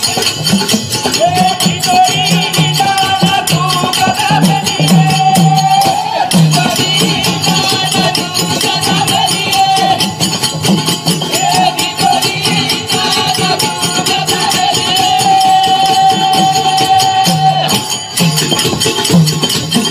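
Banjara devotional bhajan music: a steady beat on hand-held frame drums with the jingle of small hand cymbals, under a melody held in long, sliding notes. The music breaks off briefly near the end.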